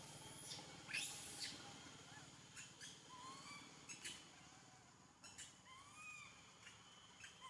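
A young monkey giving soft, short calls that rise and fall, twice, among a few sharp rustles and clicks.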